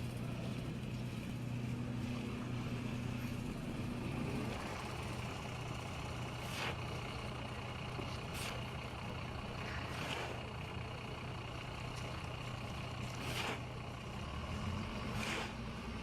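Street traffic: a vehicle engine runs with a low hum until about four seconds in, then fades. Over a steady background rush come about five short swishes a couple of seconds apart, as of vehicles passing.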